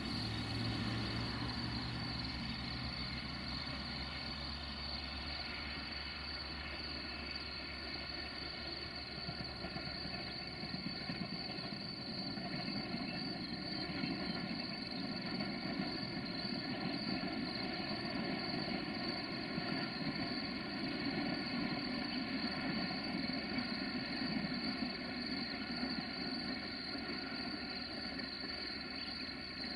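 Diesel locomotive hauling a passenger train in the distance: a steady engine drone with the low rumble of the train, and a steady high-pitched tone above it.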